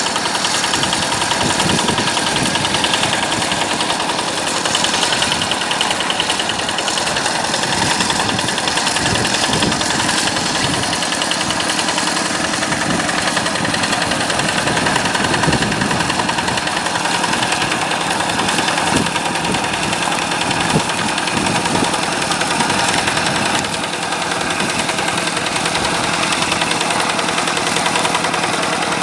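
Yanmar diesel engine of a rice-field tractor running steadily under work, with a rapid, even chugging beat.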